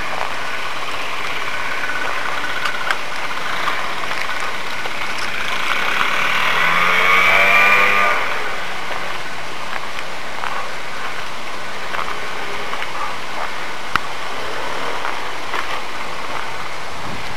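Motor vehicle engine running steadily, with a louder engine sound swelling and gliding in pitch about seven to eight seconds in before fading.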